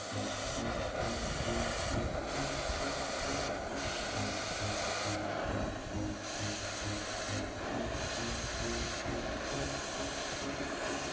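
Straight oxy-fuel cutting torch with a scarfing tip giving a steady hissing flame roar as it washes out an old weld without cutting into the base metal. Background music with a stepping bassline plays underneath.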